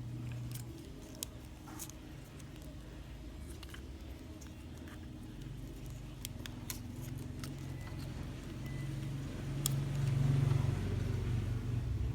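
Motorcycle engine running with a steady low hum that swells louder about ten seconds in, with scattered light metallic clicks over it.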